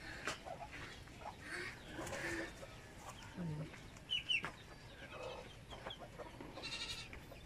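Chickens clucking now and then, fairly quiet, with a pair of short high chirps about four seconds in.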